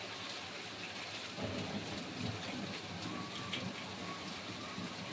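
Hail and rain falling steadily on a paved terrace, a continuous even hiss, with a low rumble joining about a second and a half in.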